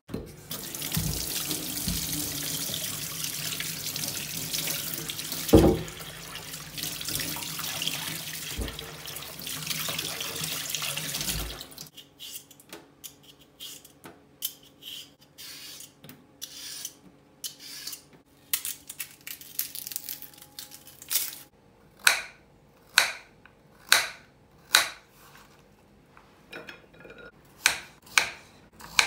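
Kitchen tap water running into a stainless steel sink, with one loud knock about six seconds in, until the water stops about twelve seconds in. Then short scraping strokes of a potato being peeled over the sink, followed by a knife slicing through the potato onto a wooden cutting board about once a second.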